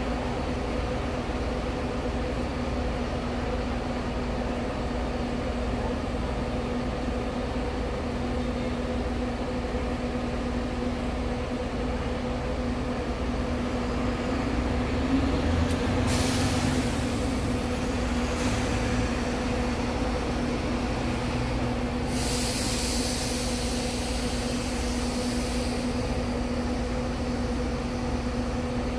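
Diesel bus engines running at a bus station with a steady hum, louder around the middle as a coach pulls out of its bay and drives away. Hissing bursts of air-brake release come about halfway through and again, longer, a few seconds later.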